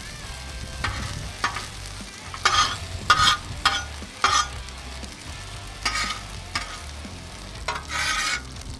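Hash browns frying on a Blackstone flat-top griddle, sizzling steadily, with about ten short scrapes of a spatula on the steel as they are worked and turned.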